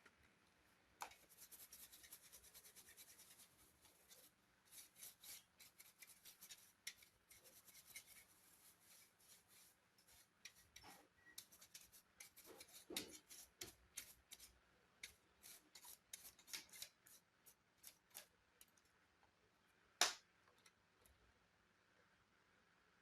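Faint hand work on an opened laptop: quick runs of small scratching clicks, then scattered scrapes and clicks, with one sharper click near the end.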